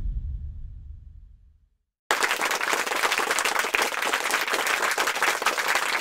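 Music fades out over the first second and a half. After a brief silence, applause and clapping start abruptly about two seconds in and carry on steadily.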